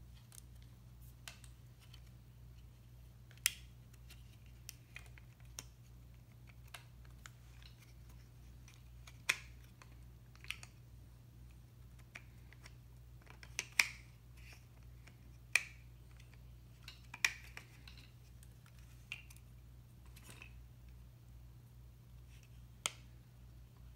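Scattered, irregular plastic clicks and knocks from a Yunteng VCT-668 video tripod's pan head and quick-release plate being handled and worked by hand, about a dozen sharp clicks spread out, over a steady low hum.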